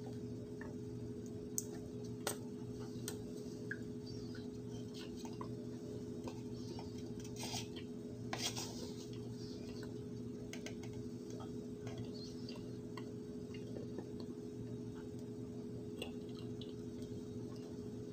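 Metal spoon digging and scraping in a plastic tub of cornstarch: scattered small clicks and taps, with two louder scooping scrapes about seven and eight seconds in. A steady low hum runs underneath.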